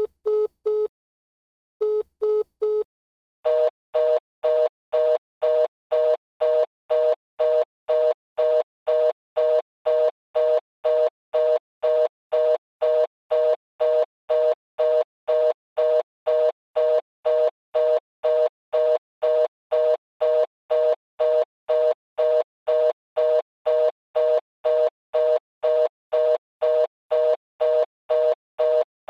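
Telephone beeps: two quick groups of three short beeps, then a steady run of two-tone beeps about twice a second, like a phone's fast busy signal.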